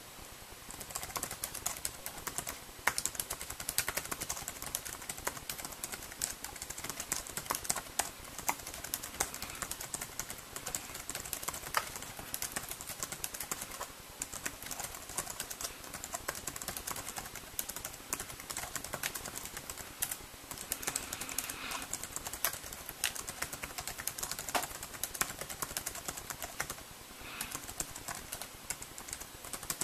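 Continuous key clicks from the compact built-in keyboard of a ViliV S7 UMPC being typed on at an uneven pace, with a few brief pauses.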